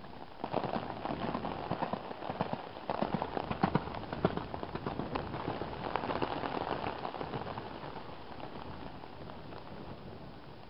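Rain pattering close to the microphone, a dense irregular crackle that is heaviest for the first several seconds and then eases off.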